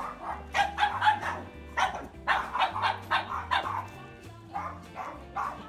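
A dog barking in quick runs of several barks each, over background music with steady low notes.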